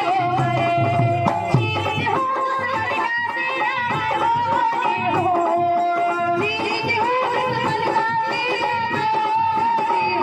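A woman singing a Bhim geet, an Ambedkarite devotional song, in a wavering, ornamented melodic line over instrumental and percussion accompaniment.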